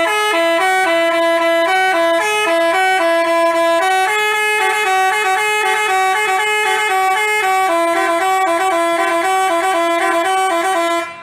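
A telolet basuri multi-tone horn playing a quick tune, its notes changing several times a second, loud and unbroken until it cuts off suddenly near the end.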